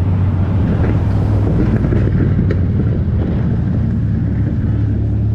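Dodge Viper's V10 engine running steadily as the car cruises slowly, with wind buffeting the microphone.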